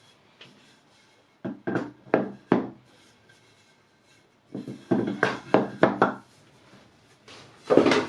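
Wooden workpieces knocking and clattering as they are handled: a quick run of knocks, a second run a few seconds later, and one loudest knock near the end.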